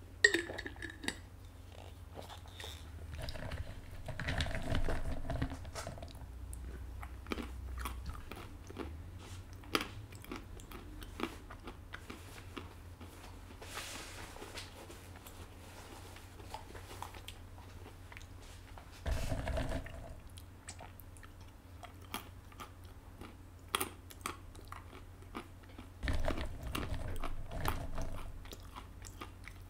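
A person chewing and crunching food close to the microphone, with scattered small clicks and louder spells of crunching about four, nineteen and twenty-six seconds in.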